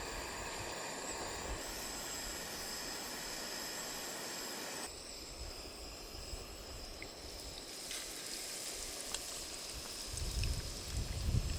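Karaage (Japanese fried chicken) frying in hot oil: a steady sizzle with a few sharp pops, from about five seconds in. A low rumble comes in near the end.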